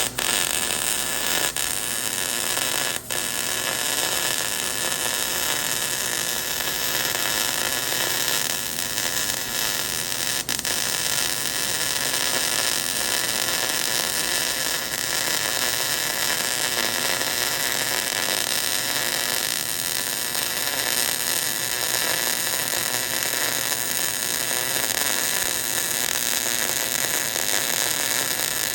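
Wire-feed (MIG) welding arc burning steadily as a bead is run along a joint: a continuous loud hiss and crackle, struck with a few short stutters just before it settles.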